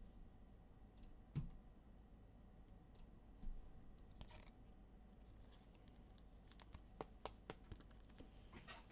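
Near silence: quiet room tone with a few faint, sharp clicks and taps, one about a second in, another a few seconds later, and a small cluster near the end.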